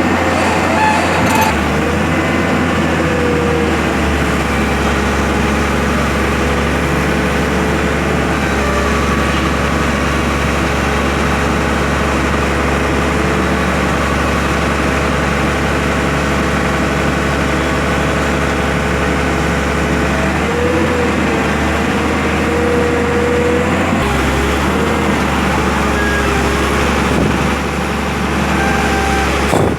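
Heavy diesel engine of a mobile crane running steadily, with a faint whine that wavers in pitch a few times.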